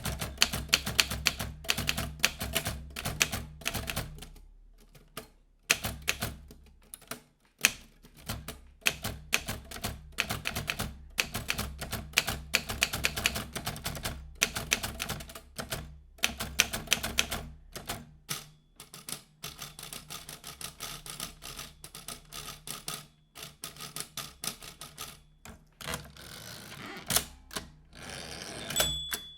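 Vintage manual typewriter being typed on: quick runs of sharp key strikes broken by short pauses. Near the end a short ring sounds, the carriage bell.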